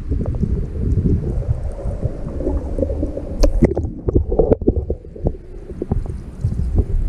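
Muffled water sloshing and gurgling picked up by a GoPro dipped into a crowded trout raceway, with many small irregular knocks against the camera housing and one sharper knock about three and a half seconds in.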